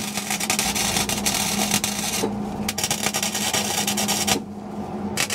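Welder arc crackling as a sleeve is tack-welded onto a steel exhaust pipe, in three runs: about two seconds, a short pause, nearly two seconds more, then a longer pause and a restart near the end. A steady hum runs beneath each run.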